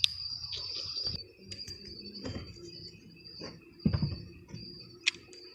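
Crickets chirring steadily at night, with a few short knocks and clunks, the loudest about four seconds in and a sharp click about a second later.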